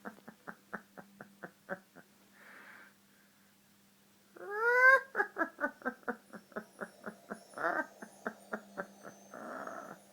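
A cat cackling: a run of quick, evenly spaced staccato calls, about five a second, that fades out. About four seconds in, a loud rising call starts a second run, with short breathy sounds between the runs.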